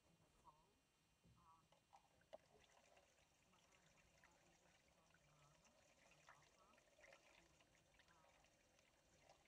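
Faint trickle of water poured from a watering can into a portable water pump's priming funnel, filling the pump casing to test whether a patched frost crack holds water.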